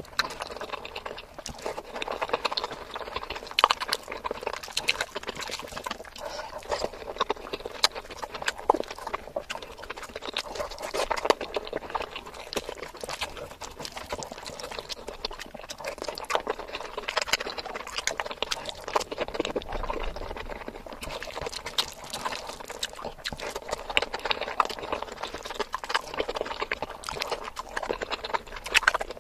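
Close-miked wet chewing and mouth clicks of a person eating chicken biryani and curry by hand, mixed with the soft squelch of rice being worked between the fingers. It is a dense, continuous patter of small wet clicks and smacks.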